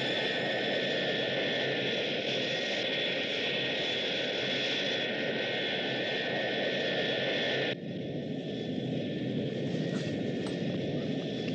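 Four-engined jet airliner in flight: a steady jet engine sound with a thin high whine. About eight seconds in it cuts suddenly to the quieter, lower steady hum of the aircraft's flight deck, with a few faint clicks.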